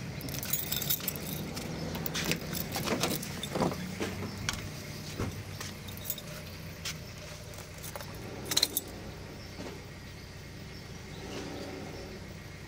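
Keys jangling with scattered clicks and knocks as gear is handled at an open car door, with a louder clatter about two thirds of the way through. A steady low engine hum runs underneath.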